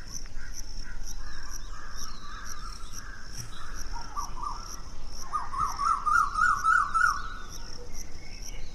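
Crickets chirping in a steady pulsing rhythm, with a wavering call that rises and falls several times in the middle.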